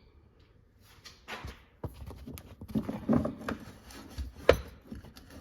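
Hands working the lock collar and rear leg of a Demco Aluminator tow bar, with irregular rubbing and scraping of the parts and one sharp click about four and a half seconds in.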